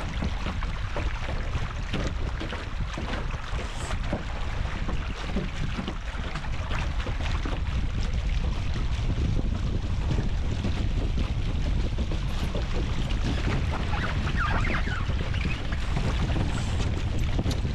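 Wind buffeting the microphone, with water rushing and slapping along the hulls of an A-Class sailing catamaran under way.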